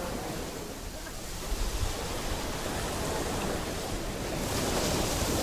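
Sea waves washing on the shore, with wind rumbling on the microphone; the hiss of the surf grows louder near the end.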